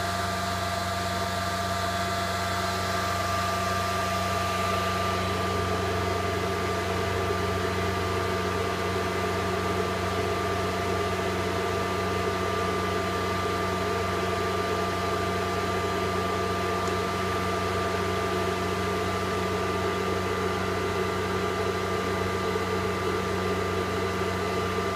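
The high-speed cooling fans of an iBeLink Dash ASIC miner running steadily while the machine mines. It is a loud, even whir over a low hum, with a few steady whining tones.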